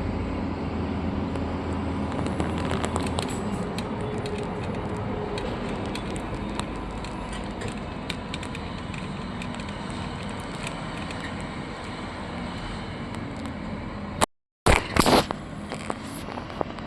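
A machine engine running steadily, with scattered clicks and crackles over it. Near the end the sound cuts out abruptly, then a few loud, short bangs follow.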